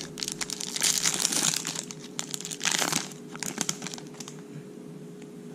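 Foil wrapper of a Topps Chrome baseball card pack crinkling as it is torn open, in crackly bursts through the first three or four seconds, then quieter rustling.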